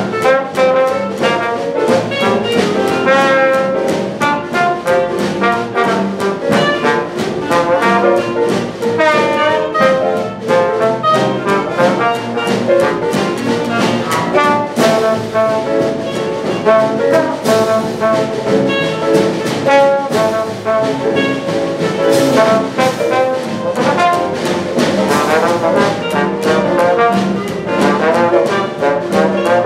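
Traditional New Orleans jazz band playing live: a trombone takes a solo over a rhythm section of piano, string bass and drums, keeping a steady swing beat.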